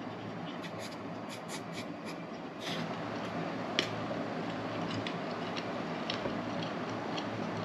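Eating sounds: utensils clicking and scraping on the dishes, a scatter of light clicks with a sharper one about four seconds in, over a steady low hum.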